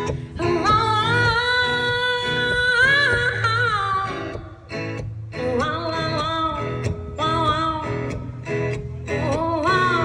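A woman singing a blues song while accompanying herself on acoustic guitar. A long, wavering held note takes up the first few seconds, followed after a brief dip by shorter sung phrases over the guitar.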